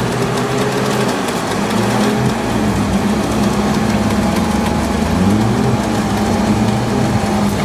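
Off-road 4x4 engine running at low revs, its pitch wavering slightly as the throttle changes.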